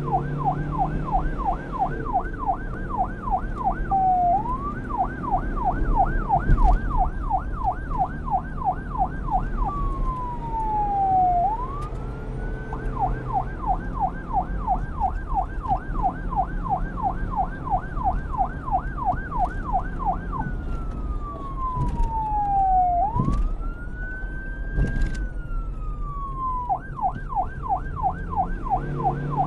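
Police car electronic siren switching between a fast yelp, rising and falling several times a second, and a slow wail: a long falling sweep around ten seconds in and again past twenty seconds, each followed by a rise back up, the second one held high before the yelp resumes. A low vehicle rumble runs underneath.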